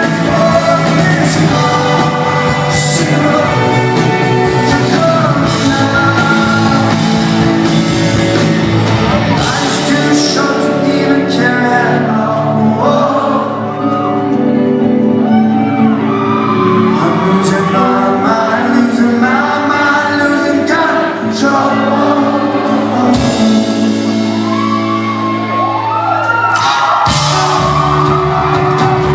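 Live rock band playing with lead vocals and some shouts, loud and steady throughout.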